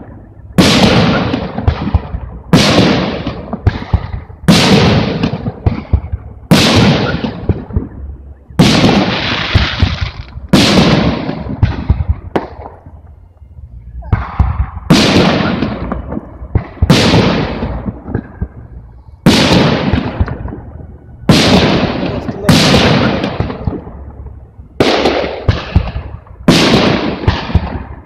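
Aerial firework shells bursting in steady succession, about one loud bang every two seconds, each trailing off into a fading echo before the next.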